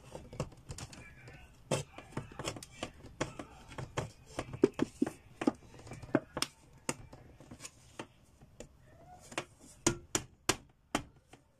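A pointed metal tool stabbing and prying at the sealed metal lid of a tin can, forcing it open by hand without a can opener. It makes an irregular run of sharp metallic clicks and taps, the loudest near the middle and again about ten seconds in.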